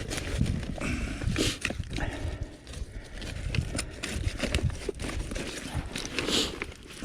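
Irregular knocks, clunks and scraping from a rusty, long-submerged chair being handled and dragged after being pulled up with a fishing magnet.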